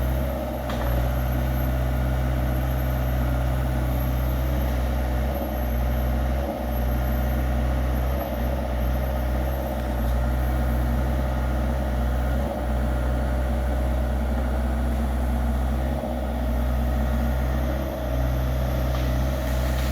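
Yanmar diesel engine of a TZCO PC60 mini excavator running steadily, with brief dips in level every few seconds.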